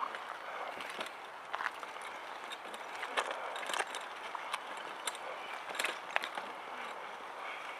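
Manual wheelchair pushed along a concrete sidewalk: the tyres roll with a steady noise, broken by irregular clicks and rattles from the frame, mixed with the footsteps of the person pushing.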